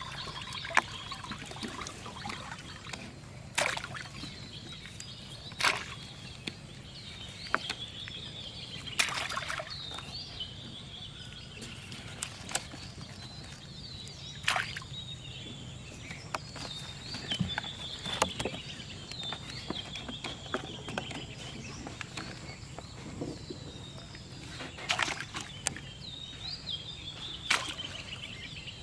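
Birds chirping continuously, with a steady low hum underneath and about a dozen sharp knocks and splashes scattered throughout.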